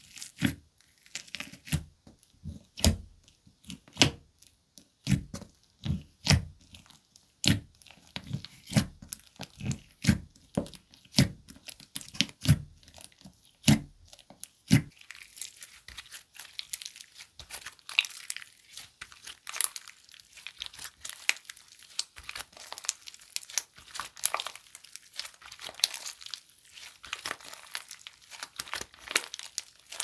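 White fluffy slime with small coloured beads mixed in, being poked and pressed in its tub, giving sharp pops about once or twice a second. About halfway through it is lifted out and stretched and folded in the hands, and the sound turns into a dense, steady crackle.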